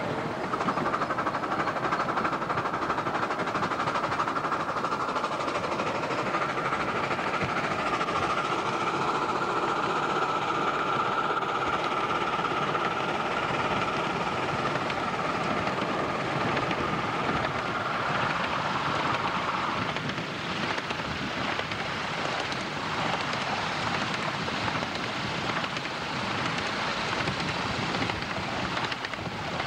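Miniature steam railway train running along the track, heard from aboard: a steady rumble of wheels on rail. A sustained high-pitched squeal sounds for about the first two-thirds and then stops, and a faint clicking runs through the rest.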